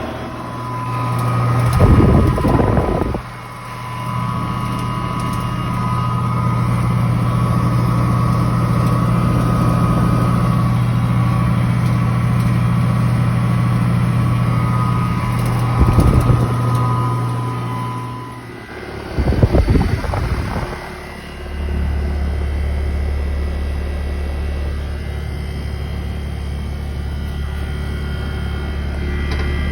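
Outdoor air-conditioning condensing units running. First a 2009 Goodman heat pump's compressor and fan hum steadily. After a short rumbling break about two-thirds of the way in, a 2020 Evcon air conditioner takes over with a lower-pitched steady hum. There are brief bursts of rumble near the start.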